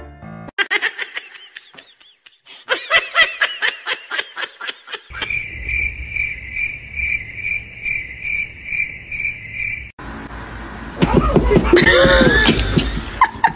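Quick chirpy laughter, then a steady beeping tone pulsing about twice a second for around five seconds. After a cut, two cats squabble near the end with a loud cry.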